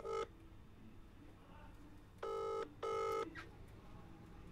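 British telephone ringing tone from a mobile phone's speaker while an outgoing call waits to be answered. The call is still unanswered. It is a double ring, two short tones close together: the second tone of one ring at the start, then a full double ring about two seconds in.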